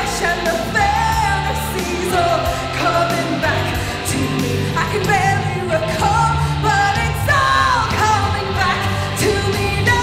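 A woman singing full-voiced into a handheld microphone over a loud pop-rock backing with a steady bass line and drums; her sung notes bend and slide, with a long falling note a little after the middle.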